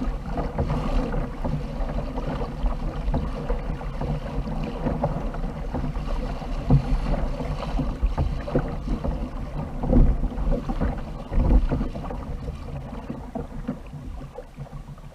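Water rushing and splashing along a fishing kayak's hull as it moves through the sea, with wind rumbling on the microphone; the water noise eases off near the end.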